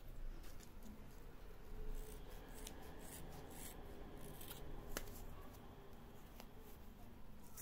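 Scissors cutting through a bundle of layered tulle: a series of short, irregular snips, faint.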